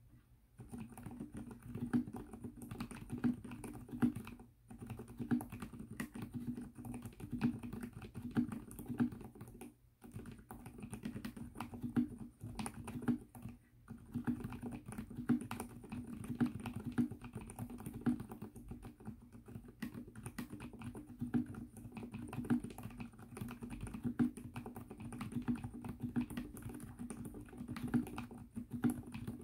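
Continuous fast typing on an Mstone Groove T mechanical keyboard fitted with fully lubricated 45 g silent Coral switches (silent, non-clicky tactile). Keystrokes come in a steady dense stream, with short breaks about four and a half, ten and fourteen seconds in.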